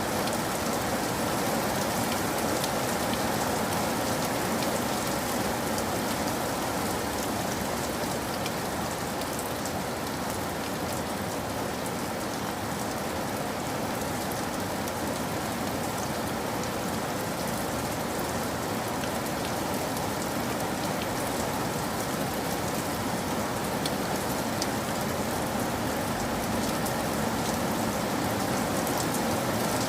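Steady rain falling, a continuous hiss with fine scattered drop ticks.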